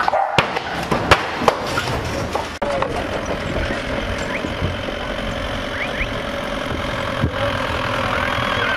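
An engine idling steadily, with a few sharp knocks in the first couple of seconds.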